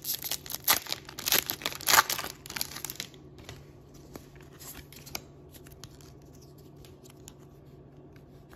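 Foil booster pack of One Piece Card Game cards crinkling and tearing open, with sharp crackles, for about three seconds. Then only faint rustles and small clicks as the cards are handled.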